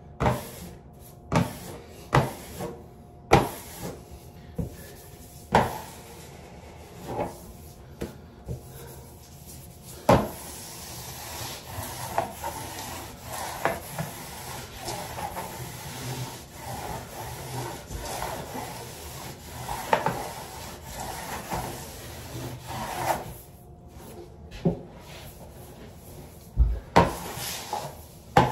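A plastic wallpaper smoother rubbed in short, hard strokes across peel-and-stick wallpaper whose face has been wetted with a sponge to cut friction. Separate sharp strokes come about once a second at first, then a steadier stretch of rubbing in the middle, and more sharp strokes near the end.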